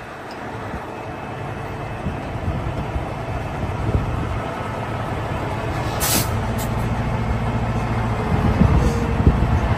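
Heavy wrecker's diesel engine running and building up as the winch takes strain to pull a stuck truck. About six seconds in there is a short, sharp hiss of released air.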